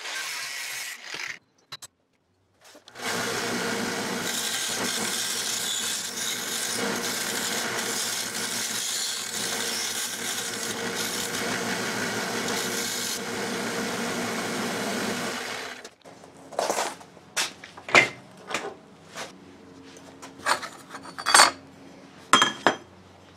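An angle grinder's cutoff wheel cuts brass sheet briefly, then after a short break a bench belt-and-disc sander runs steadily for about thirteen seconds, grinding a brass blank. Near the end comes a string of sharp metallic clanks and taps as brass pieces are set down on a metal workbench.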